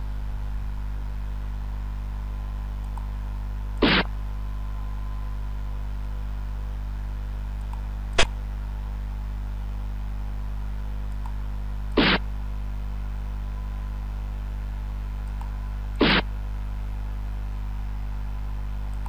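Xiangqi board program's piece-move sound effect: four short clicks about four seconds apart, one as each piece is placed, over a steady low hum.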